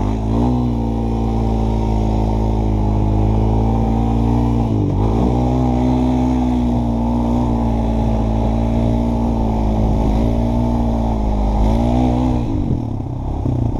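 Honda ATV engine running steadily under way, its pitch holding level and dipping briefly about five seconds in and again near the end as the throttle eases and picks back up.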